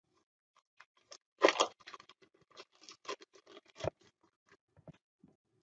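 Paper butter wrapper crinkling and rustling as a stick of butter is unwrapped, with a dull knock just before four seconds in as the butter drops into a plastic mixing bowl.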